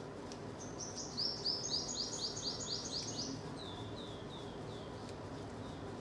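Purple sunbird singing: a quick run of about a dozen high, sharply falling notes lasting about three seconds, trailing off into a few softer, spaced notes.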